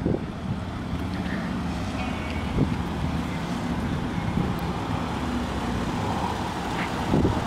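Toyota sedan's engine idling with a steady low hum.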